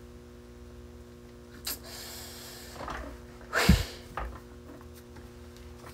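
A man's breath on a close microphone: a soft breath out about two seconds in, then a sharp, loud puff of breath hitting the microphone near the middle, over a faint steady electrical hum.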